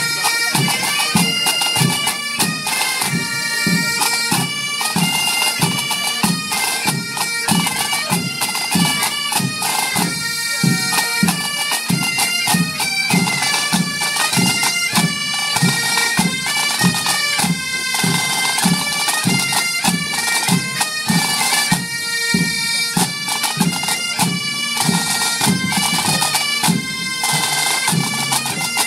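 Breton bagad playing a tune: bagpipes sounding steady held notes over a regular drum beat of about two strokes a second.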